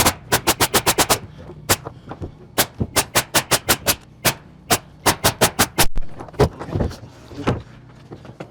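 Nails being driven into roofing in quick runs of sharp strikes, about six a second, with short pauses between the runs; the strikes stop about six seconds in, leaving a few softer handling sounds.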